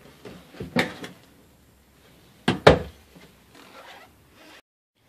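Knocks and clacks of doors being handled: a frosted-glass shower door and a wooden closet door. The loudest is a sharp double clack about two and a half seconds in, and the sound drops out completely near the end.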